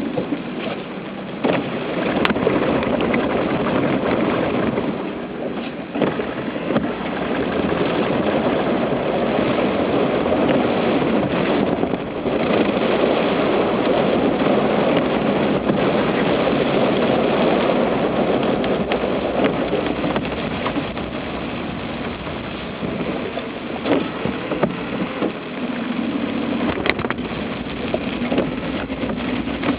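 Car driving through about 30 cm of floodwater: the engine running under a steady rush and splash of water around the car.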